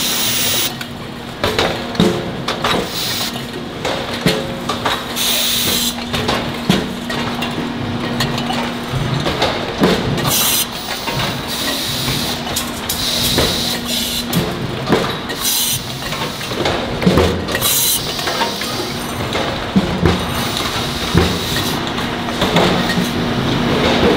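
Automated oil filter production machinery running: irregular metallic clanks and knocks from the press and can-handling equipment, with several short bursts of compressed-air hiss and a steady machine hum underneath.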